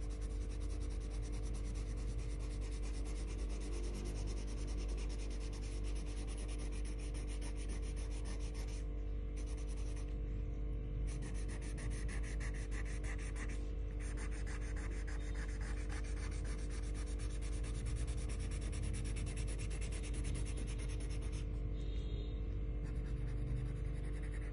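Colouring on paper: fast, continuous back-and-forth scribbling strokes of a colouring tool rubbing the paper, stopping briefly a few times.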